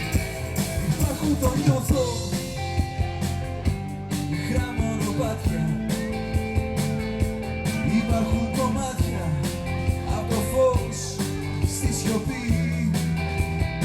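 Rock-style band music with a steady drum beat, guitar and singing.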